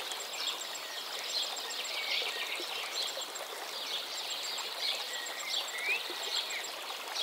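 Birdsong ambience: many birds chirping and calling in short whistled notes over a steady background hiss, with a high, rapid run of short notes recurring about once a second.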